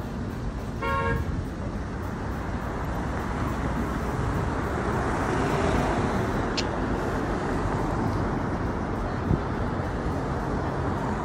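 Steady city street traffic rumble, with a short vehicle horn toot about a second in.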